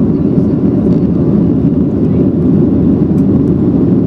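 Steady low roar of a Boeing 737-800 in flight, its CFM56-7B turbofan engines and the rushing airflow heard from inside the passenger cabin.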